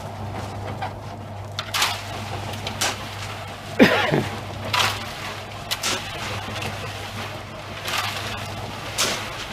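A steady low mechanical hum, with scrapes and knocks every second or so and a short falling squeal about four seconds in.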